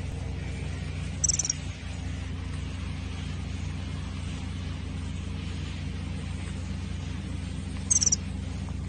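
A small bird gives a short, very high chirp twice, about a second in and again near the end, over a steady low hum.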